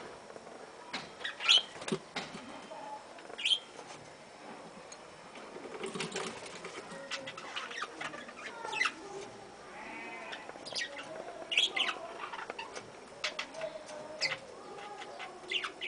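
Budgerigars chirping and warbling in a flock, with short sharp calls scattered through and a few louder squeaks, plus brief wing flutters.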